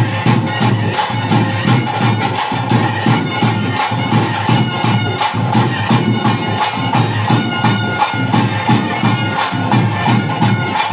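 Traditional ritual music: a reedy wind instrument playing over a steady drone, with continuous drumming.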